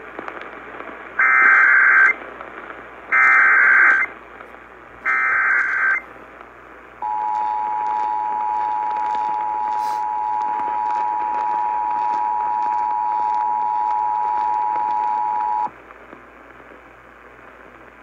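Emergency Alert System broadcast over AM radio, heard through a Sangean CL-100 radio's speaker over AM static. First come three roughly one-second bursts of SAME header data tones, then the two-tone EAS attention signal holds steady for about nine seconds. Together they mark the start of an alert activation, here a severe thunderstorm warning.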